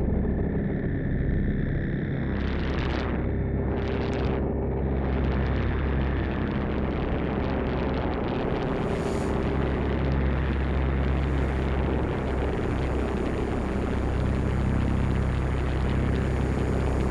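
Live electronic sound art played from laptops: a low, steady rumbling drone with a dense hiss layered above it. Two short swooshes of noise come about two and four seconds in, after which the hiss thickens and holds.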